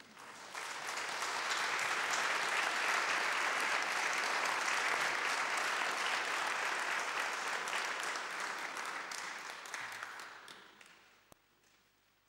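Church congregation applauding, building up within the first second, holding steady and dying away about ten seconds in. A single sharp click follows near the end.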